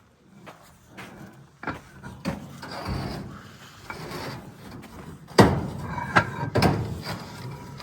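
Knocks, rubs and scrapes of something being handled, with a sudden louder knock about five and a half seconds in.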